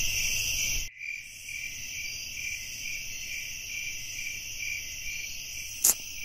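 Crickets chirping in a steady, dense high trill with a faint pulse about twice a second; the ambience drops a step in level about a second in. Near the end there is a single short, sharp click.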